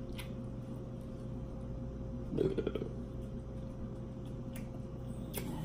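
Quiet hand-eating of a seafood boil: a few faint clicks of food being handled on a plate and a short mouth sound about two and a half seconds in, over a steady low electrical hum.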